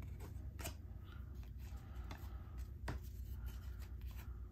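Trading cards being handled and slid apart, with two sharp clicks, one about half a second in and one about three seconds in, over a steady low hum.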